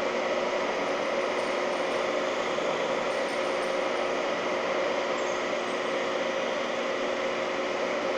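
Holzmann ED 1000 PI metal lathe running steadily at about 770 rpm while turning a steel bar, a constant machine hum with a steady whine.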